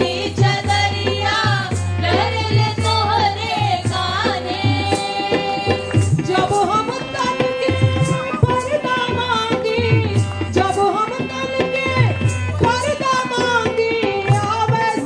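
A group of voices singing a Hindi song with harmonium and dholak accompaniment, the drum keeping a steady rhythm under the melody.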